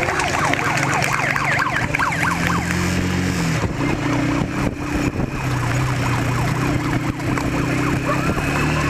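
A motor vehicle engine running, its pitch shifting about three and a half seconds in, with a siren wailing in quick rising and falling sweeps over it during the first few seconds.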